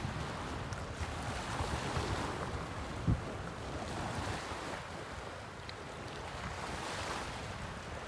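Sea waves washing against the rocks and sand, swelling and easing a few times, with wind rumbling on the microphone. A brief low thump about three seconds in.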